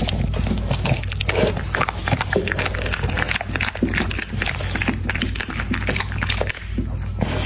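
American Pocket Bully dog eating, a run of quick wet chewing and smacking clicks.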